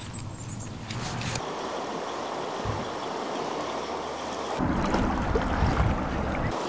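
River water rushing steadily, its tone changing abruptly a few times, with a louder low rumble for about two seconds near the end.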